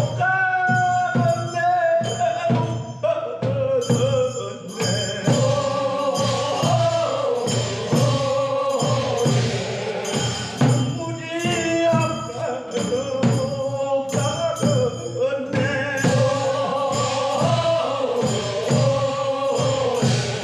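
Korean funeral bier song (sangyeo sori) sung call-and-response: a lead singer's solo lines answered by the chorus of bier carriers. Regular percussive strikes keep a steady beat underneath, typically the lead singer's handbell.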